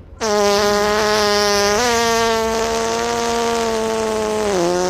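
A long, loud, buzzy fart sound held at one pitch for about five seconds, stepping up slightly about two seconds in and dropping near the end before cutting off.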